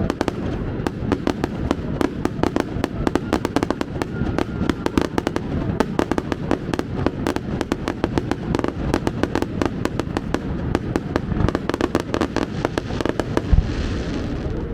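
Fireworks display in a dense barrage: rapid, overlapping bangs and crackles. A heavy boom near the end is followed by a hissing crackle.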